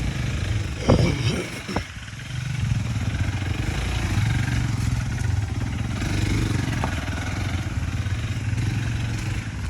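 Motorcycle engine running steadily at low revs, after a brief shout about a second in.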